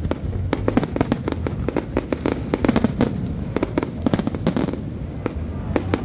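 Aerial fireworks shells bursting in a rapid barrage: a dense run of sharp bangs and crackles, thinning slightly near the end.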